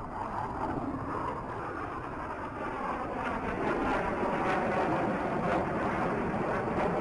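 Roar of the Black Eagles' T-50B jet trainers' turbofan engines as the jets pass, a broad rushing noise that grows louder over the first few seconds and then holds.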